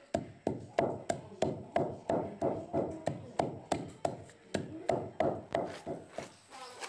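A pestle pounding dried corn kernels in a mortar, cracking them into grits. It strikes in a steady rhythm of about three dull thuds a second, stopping about five and a half seconds in.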